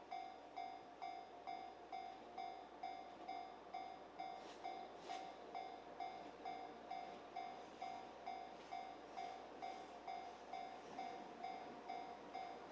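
Railway level-crossing warning bell ringing steadily at about two strokes a second, the signal that a train is approaching. A couple of brief faint hisses come near the middle.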